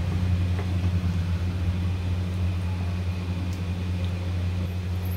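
Wooden spatula stirring a thin curry gravy in a kadai, heard faintly over a steady low hum.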